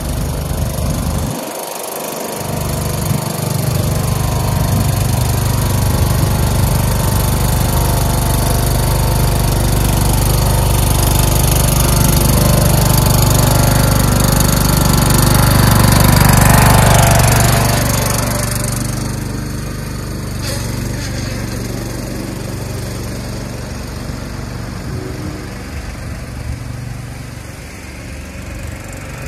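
Craftsman LT1000 lawn tractor engine running steadily. It grows louder to a peak about two-thirds of the way through, then fades.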